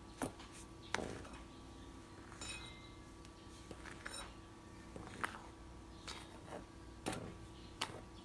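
Silicone spatula stirring dry flour and sugar in a glass mixing bowl, with scattered sharp clinks as it knocks against the glass.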